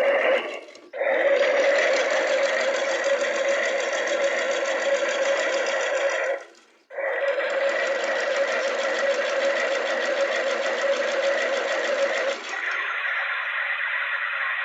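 Battery-powered toy washing machine running: a steady small-motor whirr with a constant tone. It cuts out briefly twice, about half a second in and about six and a half seconds in, and changes to a thinner sound near the end.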